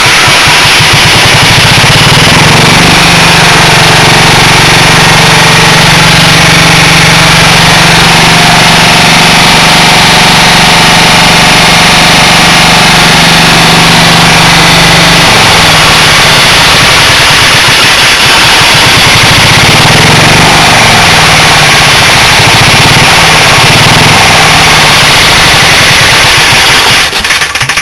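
Lombardini LD 325 single-cylinder air-cooled diesel generator engine running loud and steady, with little muffling on its exhaust. It is shut down about a second before the end.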